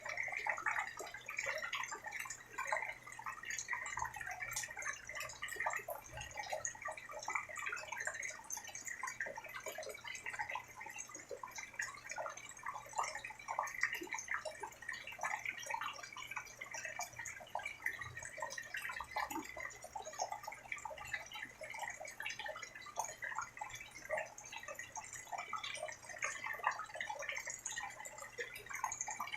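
Rain falling steadily: a dense, even scatter of many small drops landing and dripping.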